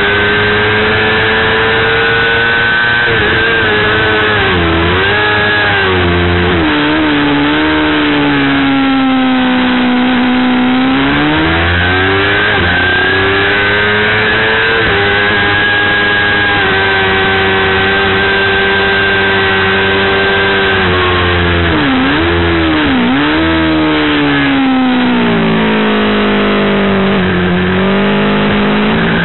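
Motorcycle engine at racing speed, heard from a camera mounted on the bike: the revs climb and hold on the straights and dip sharply several times as it slows for corners, with wind rush underneath.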